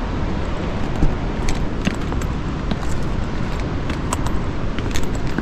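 A loud, steady rushing noise with scattered light clicks and jingles through it.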